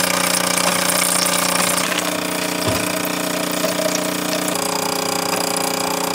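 Loud, steady electric buzz of a kitchen appliance's motor or pump, starting abruptly. A high thin tone joins it about two-thirds of the way through, and it cuts off suddenly just after the end.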